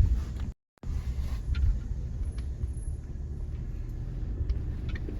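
Low, steady rumble of a Toyota 4Runner heard from inside the cabin as it crawls a rough, wooded off-road trail, with a few faint ticks and creaks. The sound drops out completely for a moment about half a second in.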